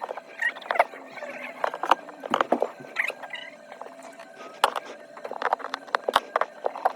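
Irregular small clicks, taps and scrapes of hand tools and phone parts being handled during an iPhone 13 Pro back glass repair.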